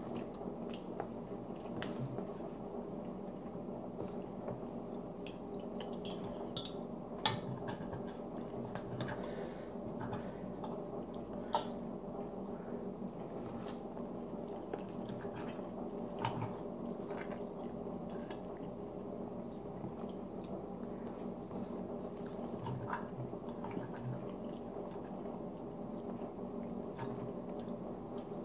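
Close-miked chewing and mouth sounds of a person eating French toast, with a knife and fork clicking and scraping on a plate now and then; a sharp clink about seven seconds in is the loudest. A steady low hum runs underneath.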